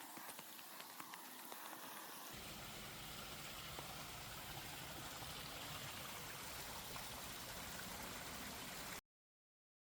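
Steady outdoor ambient noise, an even hiss. A low rumble joins it about two seconds in, and it cuts off suddenly about nine seconds in.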